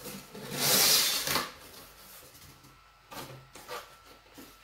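Cardboard box flaps being pulled open: a loud scraping rustle of cardboard about a second in, then a few short, quieter rustles and taps as hands reach into the box.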